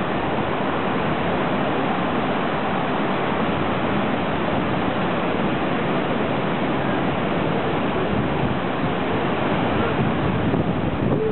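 Rough surf breaking on a beach: a steady, even wash of water noise with no distinct strokes.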